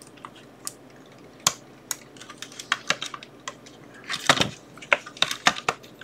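Hands fitting a 9-volt battery into the plastic battery compartment of a handheld network cable tester: a scatter of small sharp clicks and taps, sparse at first and busier after about two seconds, with the loudest cluster about four seconds in.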